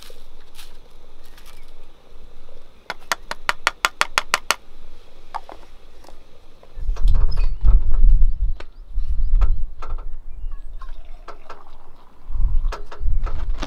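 Hand coffee grinder being handled as its grounds are emptied into a paper filter: a quick run of about ten even clicks, then scattered knocks and bursts of low rumble.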